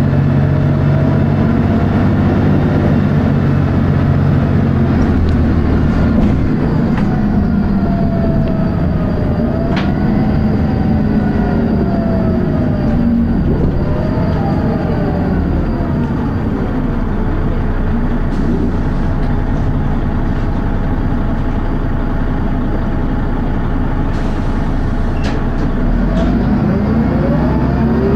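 Dennis Arrow bus's diesel engine and ZF automatic gearbox running under way, a steady loud drone with a whine that rises and falls repeatedly as the bus speeds up and slows. A thin high-pitched tone sits over it for several seconds in the middle.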